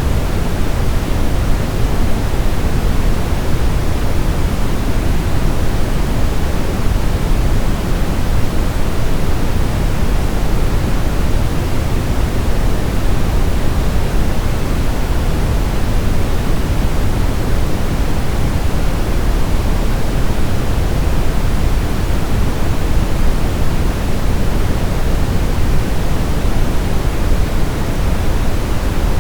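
Brown noise: a steady, even rushing hiss with most of its weight deep in the bass, unchanging throughout.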